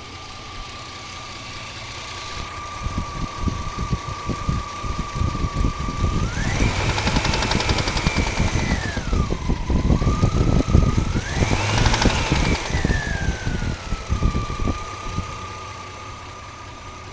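1997 Oldsmobile Bravada's 4.3 L Vortec V6 idling with a rapid ticking knock, revved up twice, about six and eleven seconds in, with a whine rising and falling with the revs. The owner cannot tell whether the noise from the top of the passenger side is lifter or rocker tap or rod knock.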